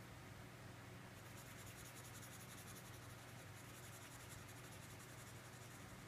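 Red felt-tip marker scribbling quickly back and forth on paper, colouring in a small shape: a faint, rapid scratching that starts about a second in and dies away near the end. A low steady hum lies underneath.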